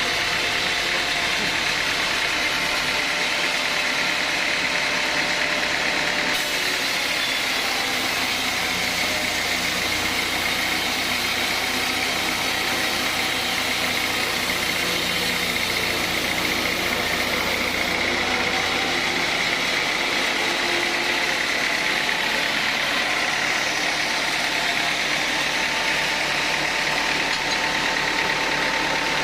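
Sawmill saw and its drive running steadily while sawing teak. About six seconds in, a higher hiss and a low hum come in for about twelve seconds, then drop away.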